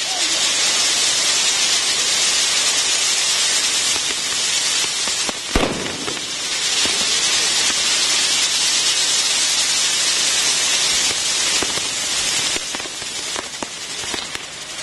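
Ground fireworks burning on a metal frame: a dense, steady hissing spray of sparks with scattered crackles, and one sharp bang about five and a half seconds in. The hiss eases slightly near the end.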